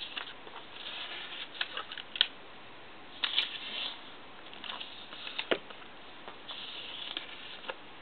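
Origami paper rustling and crinkling as a square sheet is folded into a triangle and creased by hand. The sound comes as short rustles and scattered crisp ticks.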